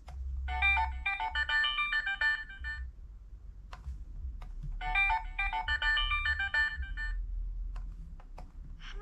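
VTech Swipe & Discover toy phone playing a short electronic ringtone melody twice, each about two and a half seconds long, with sharp clicks of its buttons being pressed in between.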